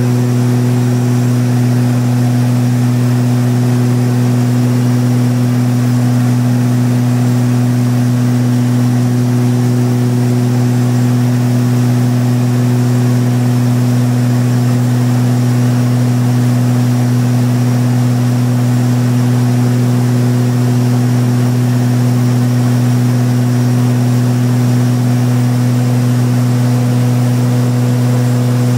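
Light aircraft engine and propeller droning inside the cabin: a loud, constant low hum that keeps one unchanging pitch throughout.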